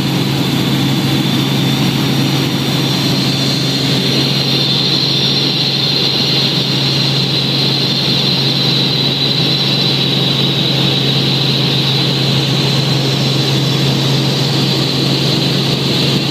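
Helicopter cabin noise in level cruise: the steady, loud drone of the engine and rotor with a high whine on top.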